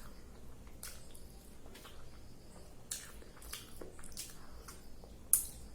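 Close-up wet chewing and mouth sounds of someone eating sambar-soaked idli: soft squishes and scattered lip and tongue clicks, with one sharper click near the end.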